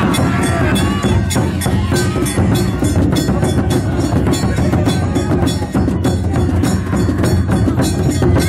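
Danjiri float festival music: heavy drumming under rapid, regular metallic strikes of small hand gongs, about five a second, with a few shouts.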